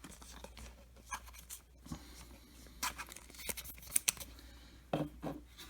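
Chrome baseball cards and their foil pack being handled: scattered light clicks and rustles of stiff cards and wrapper.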